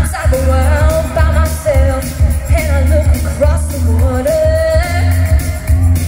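A woman singing a pop song into a microphone over amplified music with a strong bass beat, holding a longer note near the end.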